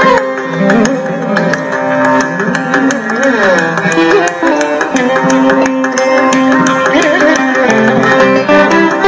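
Carnatic electric mandolin playing a fast melody with sliding, ornamented notes over hand-drum accompaniment.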